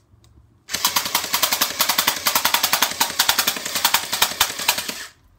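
Electric gel blaster built as an AK-47 replica firing one sustained full-auto burst of about four seconds: a fast, even mechanical rattle of its motor-driven gearbox, starting about a second in and stopping just before the end. It is running on an 11-volt battery instead of 7.2 V, through a new contact trigger switch.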